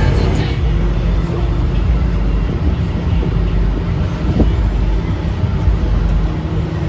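Heavy vehicle engine running steadily, a low continuous drone.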